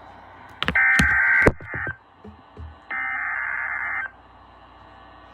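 Emergency Alert System SAME header data bursts: two raspy digital warbling bursts, each about a second long and about two seconds apart, with a few sharp clicks around the first.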